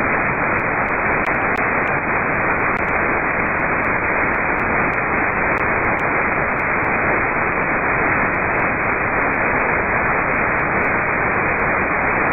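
Steady hiss and static from an amateur radio receiver, with no station audible.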